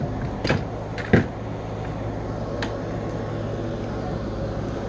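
A few light knocks and clicks of handling, three in the first three seconds, over a steady low hum.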